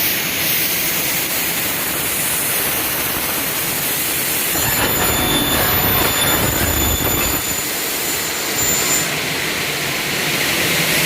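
Double-head CNC aluminium cutting saw running steadily, its circular blades cutting through an aluminium profile from about five to seven and a half seconds in, when the sound grows fuller and high ringing tones come in.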